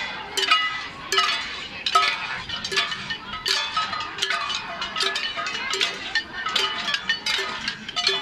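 A bell-like metal ringing, struck in a steady rhythm just under twice a second, each strike ringing on the same pitches.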